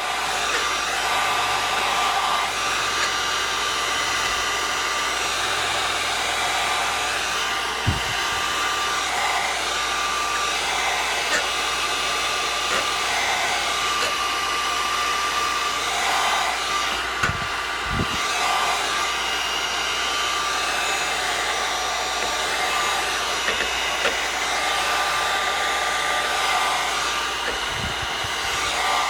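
Heat gun blowing steadily, an even rush of air with a steady whine, as it warms vinyl tint to shape it onto a curved lens and dry off the water under it. A few faint knocks come through it.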